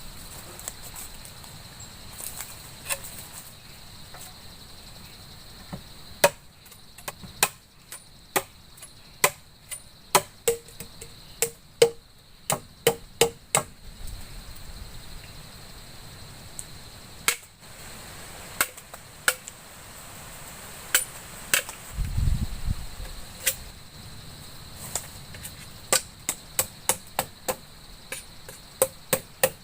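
Chopping: runs of sharp strikes, about two a second, with short pauses between the runs.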